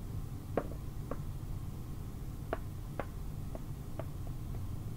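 Light, scattered clicks and taps of a small wooden figure being handled and set down on a model mountain, over a faint steady low hum.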